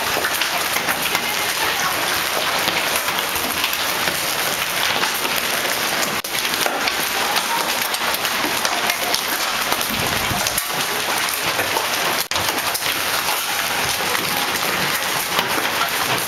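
Hail and heavy rain pelting down: a steady, dense patter of many small hits on roofs, cars and the ground.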